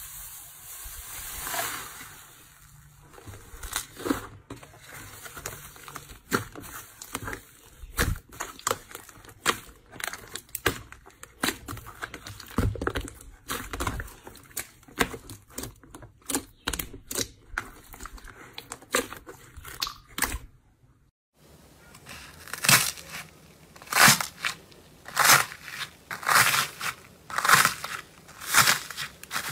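Hands squeezing and kneading thick slime, with a dense run of sharp wet pops and crackles as trapped air bursts. After a short gap about two-thirds of the way in, fingers pressing a second slime give louder, more widely spaced pops.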